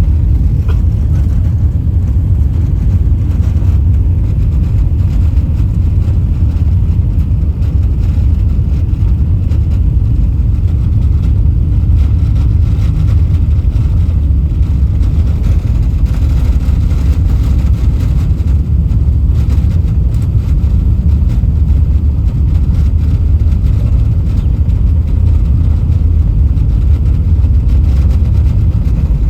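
Steady low rumble in the cabin of an Airbus A380-800: its four jet engines and the airflow, loud and unchanging in pitch.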